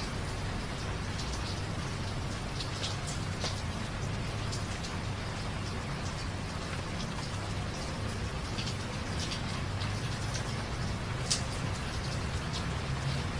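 Steady rain, with scattered single drops ticking sharply over the hiss and a louder drop about eleven seconds in, above a low steady rumble.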